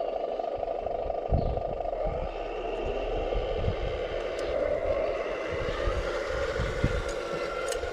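Scale RC excavator's hydraulic pump running with a steady whine, with a few low thuds from the machine working.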